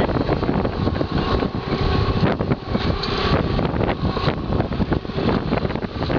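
Strong south wind buffeting the microphone in rapid, uneven gusts.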